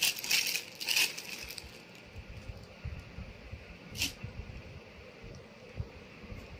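Clear plastic packaging crinkling as a folded sari is pulled out of it, loudest in the first second or two, then soft rustling and bumping of the cloth being handled, with one sharp crackle of plastic about four seconds in.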